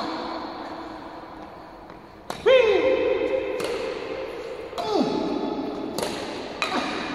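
Badminton racket hitting a shuttlecock: a sharp hit at the start, then a run of hits about one a second from about two seconds in. Each hit is followed by a long ringing echo that falls in pitch through the large hall.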